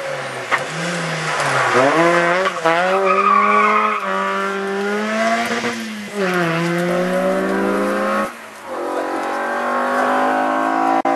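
Rally car engines at full throttle: a Peugeot 206 rally car revving hard through the gears, the pitch climbing and dropping back at each shift. After a short break at about eight seconds, another rally car's engine climbs steadily in pitch.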